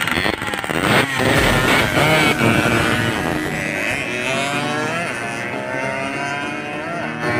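Two vintage two-stroke trail motorcycles, a Suzuki TS and a Yamaha Enduro, revving hard and pulling away together. The engine pitch climbs, drops and climbs again with each gear change as they ride off.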